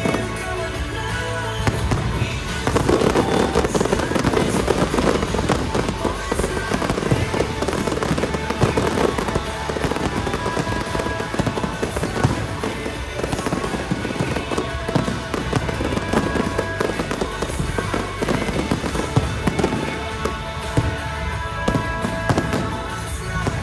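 A fireworks display bursting and crackling continuously, many reports a second, over music with singing.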